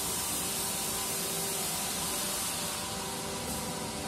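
Large log band saw running: a steady hiss with several steady humming tones underneath, the hiss easing a little after about three seconds.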